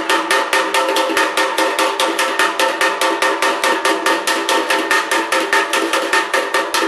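Body hammer tapping the steel flange of a 1962 Studebaker 289 oil pan against a metal backing piece: quick, even blows, about six or seven a second, each with a metallic ring. The taps are flattening dimples that screws pressed into the pan rail when they were overtightened on a cork gasket.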